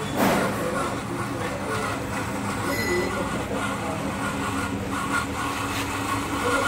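A click, then the 12-volt DC gear motors of a small model car running with a steady whine as the car drives itself.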